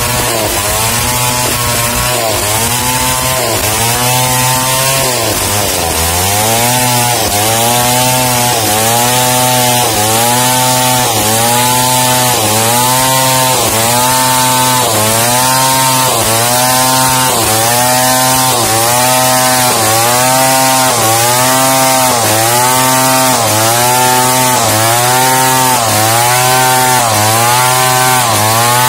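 Large two-stroke chainsaw cutting lengthwise through a freshly milled wooden plank. The engine note rises and falls in a steady rhythm about once a second, a little faster after about six seconds.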